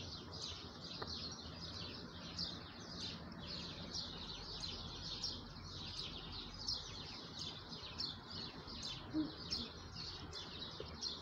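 Small birds chirping continuously, quick high chirps several a second, over steady low background noise.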